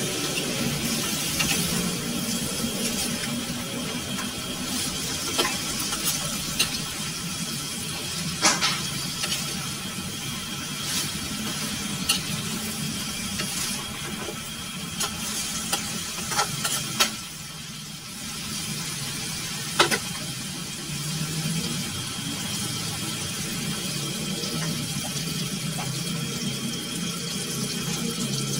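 Chicken and potato pieces frying in an aluminium wok, a steady sizzle, while a metal spatula stirs them, clinking and scraping against the pan now and then. A steady low hum runs underneath.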